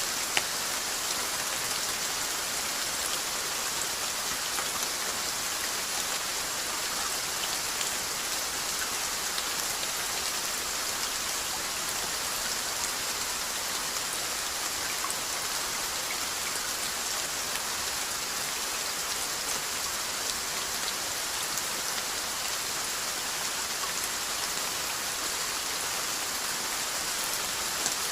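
Steady rainfall: an even hiss of rain with scattered drop ticks and a single sharper click about half a second in.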